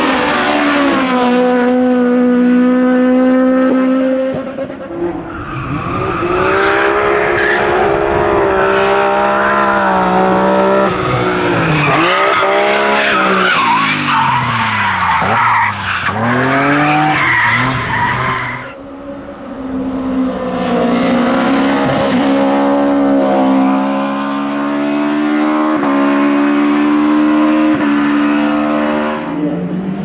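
Hill-climb race cars run flat out one after another: a Mk1 VW Golf racer, a BMW E30 and a Honda Civic TCR. The engines sit high in the rev range and step through gear changes. Midway the revs drop and climb again as the E30 slides through a hairpin with tyre squeal.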